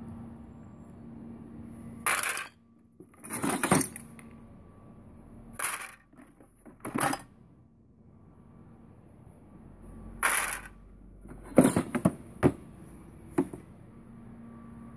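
Rusty steel hand tools (files, a rasp, a handsaw) clanking and rattling against each other in a plastic crate as they are lifted out and handled, in a series of about eight separate short metal clatters.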